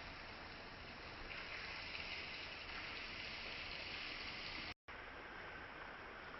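Small rainforest stream flowing, a steady rush and babble of water. It drops out for a split second about three-quarters of the way through, then carries on a little duller.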